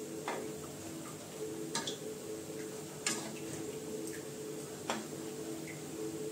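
Urad dal vadas frying in hot oil in a metal kadai, with a steady sizzle and hum, while a metal slotted spatula clinks against the pan four times at uneven intervals.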